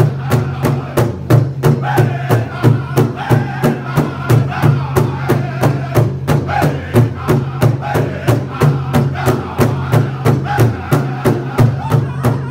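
Powwow drum group: several men singing together over a steady, even beat struck in unison on one large shared drum, about two and a half beats a second.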